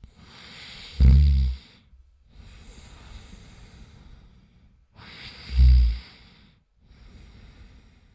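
A person snoring: two loud, low snores on the in-breath, about a second in and again about five and a half seconds in, each followed by a long breath out.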